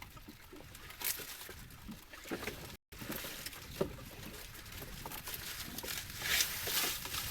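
Wind and water noise aboard a small boat at sea, steady, with a brief dropout to silence about three seconds in.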